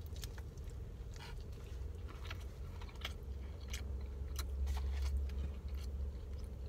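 A person chewing a breakfast sandwich: soft, irregular chewing and crunching clicks over a steady low hum inside a car.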